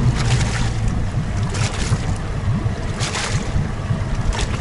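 Outboard motor running under way, with water rushing past the hull and wind gusting on the microphone.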